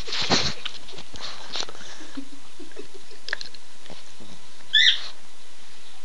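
Boston Terrier nosing and bumping against the phone, with rustling and small knocks, then one short, high squeaky whine about five seconds in.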